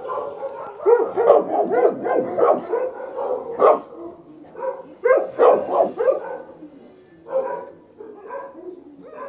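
Greater Swiss Mountain Dog puppies barking and yipping in quick, overlapping high-pitched barks. The barking is thickest in the first few seconds and again around the middle, then thins to a few scattered yaps near the end.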